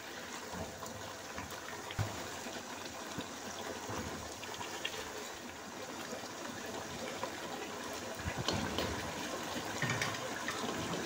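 Chicken curry masala sizzling and bubbling in a pot over a high flame as it is fried down (bhuna). A spatula stirs and knocks against the pot a few times.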